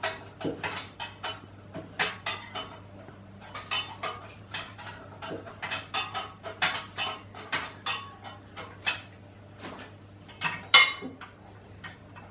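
Irregular metallic clinks and knocks of hand tools and steel parts against the cast-iron ram and turret of a milling machine as it is worked loose, with a louder clatter near the end. A steady low hum runs underneath.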